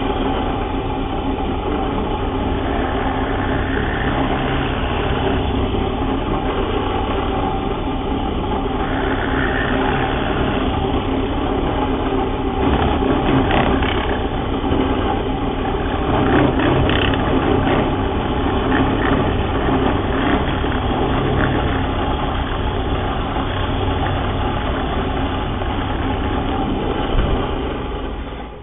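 Bench drill press running steadily as its twist bit bores a row of holes into a timber leg to clean out a mortise: a constant motor hum with wood-cutting noise that grows louder in places as the bit is fed in.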